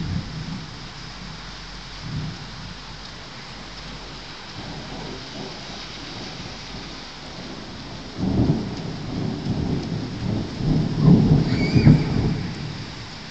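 Thunder rumbling over steady rain: a brief rumble at the start, another about two seconds in, then a long rolling peal from about eight seconds in that grows loudest near the end.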